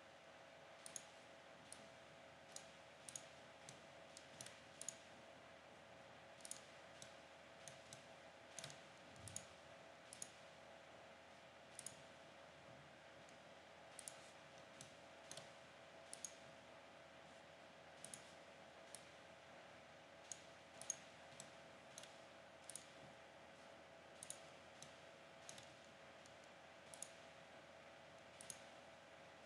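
Computer mouse clicking in irregular, short single and double clicks, over a faint steady hum.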